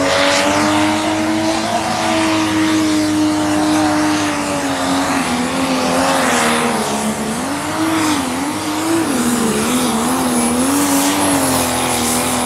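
Turbo-diesel engine of a Pro Stock pulling tractor running flat out during a pull. The engine note holds steady, drops about seven seconds in, wavers up and down for a couple of seconds as the revs hunt under load, then steadies again.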